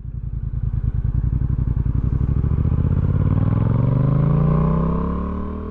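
Yamaha XSR700's parallel-twin engine accelerating, its note rising steadily for a few seconds, then levelling off and easing near the end.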